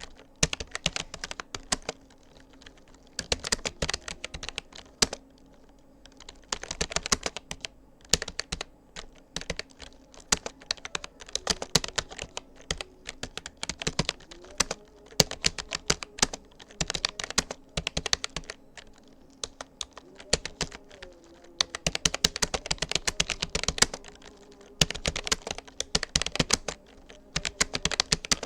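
Touch-typing on a Rapoo computer keyboard: fast runs of key clicks in bursts, broken by short pauses of up to about a second.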